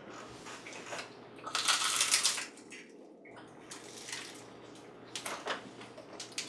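A giant water bug's hard shell being bitten and chewed, crunching in a few short bursts, the longest and loudest about two seconds in.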